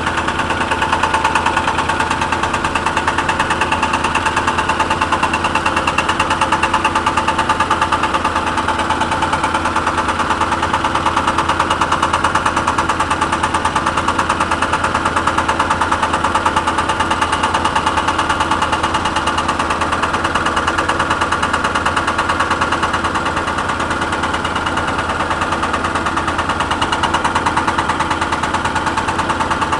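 Cat 320 excavator running, with its hydraulic hammer breaker pounding in a fast, even rattle.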